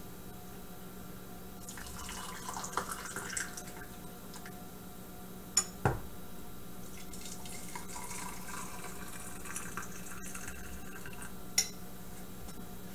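Hot water poured from a stovetop kettle into mugs, splashing and trickling, over a steady low hum. Two sharp clinks come close together about six seconds in, and another near the end.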